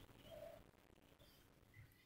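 Near silence: room tone, with one faint, brief sound about a third of a second in.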